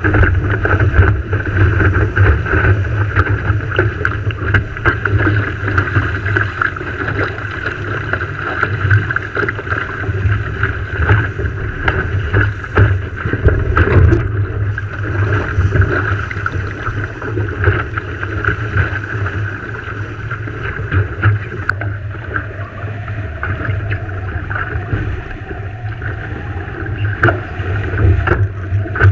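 Wind buffeting the microphone in gusts over the rush and splash of water along the hull of a Farr 3.7 skiff under sail, with frequent small knocks.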